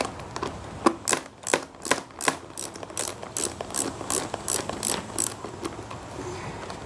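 Hand ratchet clicking in a steady rhythm, about three clicks a second for some four seconds, as a door-panel screw or 7mm bolt is backed out.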